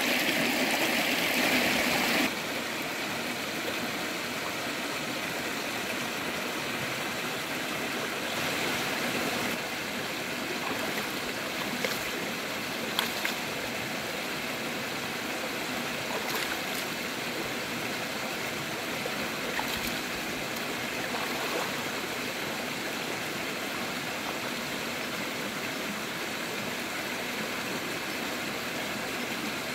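Shallow, low-running river flowing over rocks: a steady rush of water, louder for the first two seconds, with a few brief splashes.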